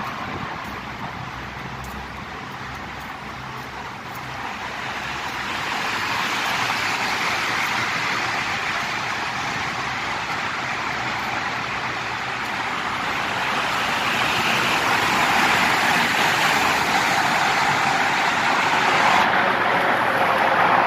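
Road traffic inside a concrete road tunnel: the steady rush of approaching cars and trucks echoing off the walls, growing louder and loudest near the end.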